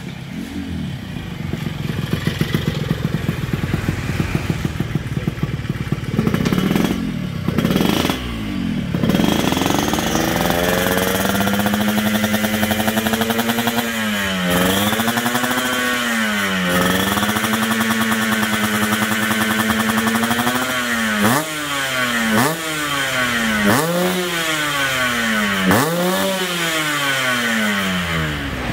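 Yamaha RX-King's 135 cc single-cylinder two-stroke engine revving. It runs low and uneven at first, then rises sharply twice around seven to nine seconds in and is held at high revs with two brief dips. In the last seven seconds it gives a string of quick throttle blips, each one falling away, about one a second.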